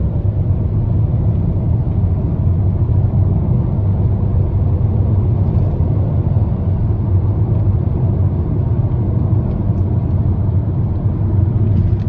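Hyundai Tucson driving at highway speed: a steady low rumble of road and engine noise with no knocking heard. The reattached air dam appears to have cured the knock.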